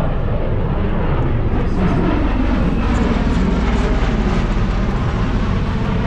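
MV-22 Osprey tiltrotor running its engines and prop-rotors with a loud, steady, low rumble.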